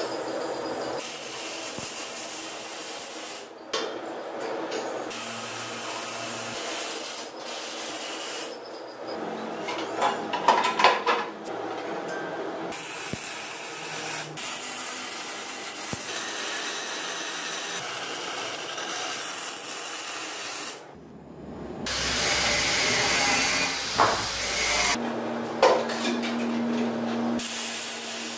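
MIG welding on a tubular trike frame: a steady crackling hiss in several runs that stop and start abruptly, with a cluster of loud metal knocks about ten seconds in and a steady low hum near the end.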